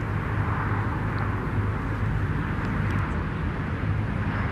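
Strong wind blowing across an outdoor microphone: a steady low rumble with an even rushing noise over it.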